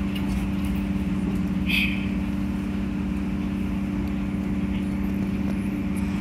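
SEPTA Broad Street Line subway car standing at a station platform, its onboard equipment giving a steady low hum with two even tones. A short higher-pitched blip comes about two seconds in.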